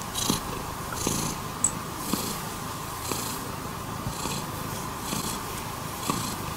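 Domestic cat purring steadily while being scratched under the chin, the purr swelling in a cycle of about once a second.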